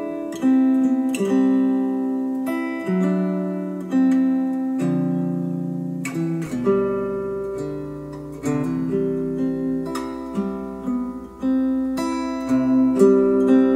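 Plucked acoustic guitar music played back through KEF Q350 bookshelf speakers on an Arcam SA10 amplifier, switching to Polk Audio Reserve R200 speakers about halfway through, where a faint low hum comes in underneath.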